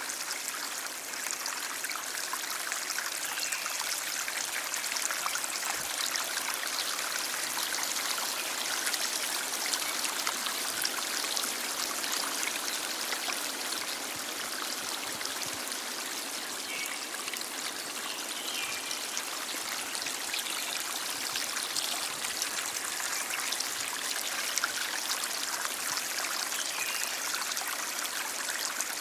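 Stream water flowing steadily: an even rushing with constant fine splashing and trickling.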